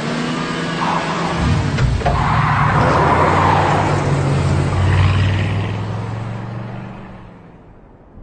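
A car engine running and revving, loud at first and then fading away over the last few seconds, as if the car drives off.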